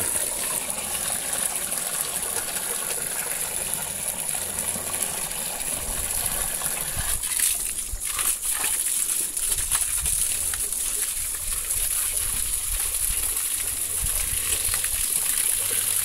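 Whey pouring from a hose into a pig trough: a steady trickling, splashing flow, with a few sharper splashes about halfway through, as pigs crowd the trough to feed.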